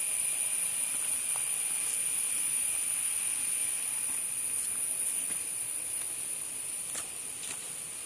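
Steady, high-pitched drone of forest insects, over the soft rush of a small stream that eases off a little after the middle. A few faint clicks of footsteps.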